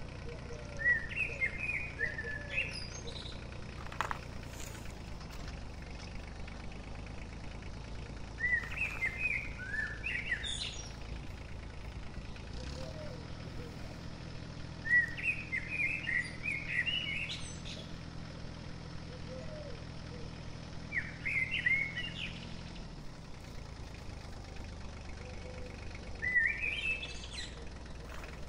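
A songbird singing short, quick phrases of chirping notes, about five phrases each a second or two long, with pauses of several seconds between them.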